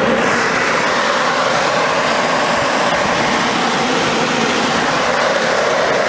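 Carrier WeatherMaster rooftop packaged HVAC unit running with its fans on, a steady rush of moving air and machinery.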